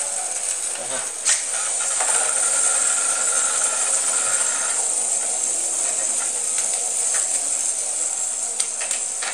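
Two small ball-shaped spinning tops whirring on a plastic battle arena, heard as a steady high hiss. A sharp click comes about a second in, and a couple more near the end as the tops knock together.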